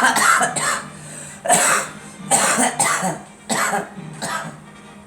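A coughing fit: a run of about six hard coughs in separate bursts, the later ones weaker. It comes from a sinus infection that, by the cougher's own account, makes them cough until they feel sick.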